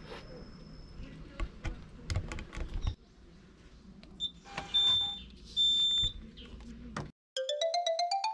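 Meal-ticket vending machine beeping, two high electronic beeps each under a second long, after a few clicks and knocks of handling. The sound then cuts off, and a short chime of quickly rising notes follows.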